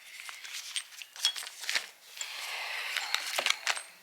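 Hands handling parts and tools during axle assembly: scattered light clicks and knocks, and a stretch of rubbing, rustling noise about halfway through, like a part being wiped.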